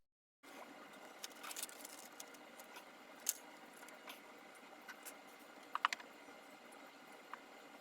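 Faint scattered clicks and light taps of small objects being handled, over a low hiss, with a sharper pair of clicks about six seconds in.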